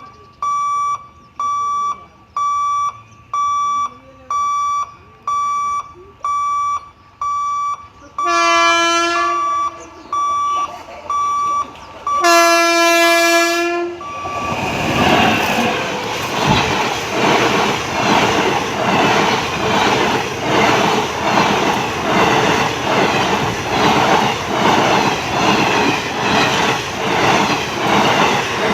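An electronic warning beeper pulses about one and a half times a second. It is broken by two blasts of a WAP-5 electric locomotive's horn, the second longer. Then the train passes at speed with a loud, rhythmic clatter of wheels over the rail joints.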